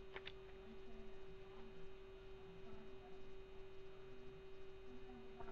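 Faint steady electrical hum, with a couple of soft clicks just after the start and faint plastic rustling as trading cards are worked out of a binder's plastic sleeves.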